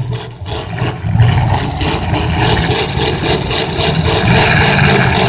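Engines of full-size demolition derby cars revving hard as they push and ram in the arena. The sound grows louder about a second in and again near the end, when a hiss joins it.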